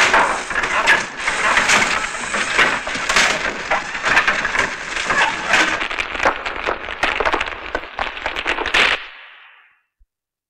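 Sound effect of rocks crashing and tumbling down: a dense, loud run of sharp cracks and knocks that stops about nine seconds in, tailing off quickly.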